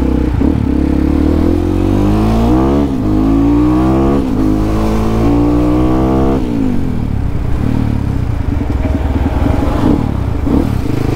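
Yamaha WR155R's single-cylinder engine accelerating hard through the gears. The pitch rises in three pulls, with upshifts about three and four seconds in. About six seconds in the throttle shuts and the engine drops to lower, steadier running.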